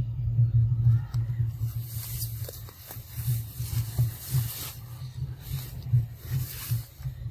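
Rustling of grass and leafy undergrowth in repeated bursts, over a low, pulsing rumble on the microphone.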